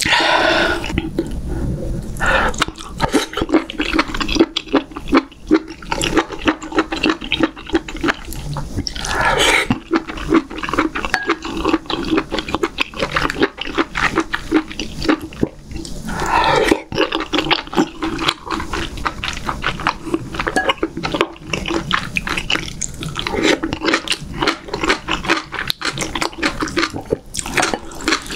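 Close-miked eating of a galbi doenjang jjigae meal: wet chewing and smacking throughout, with a loud slurp every several seconds.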